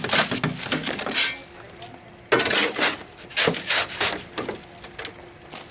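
Metal masonry tool scraping and clinking through stiff concrete mix: a run of sharp scrapes and knocks, with a heavier scrape a little past two seconds in.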